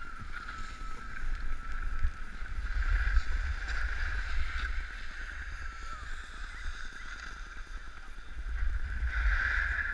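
Steady swishing hiss of sliding and edge-scraping over packed snow on a downhill run, with low wind rumble on the camera's microphone. It swells about three seconds in and again near the end.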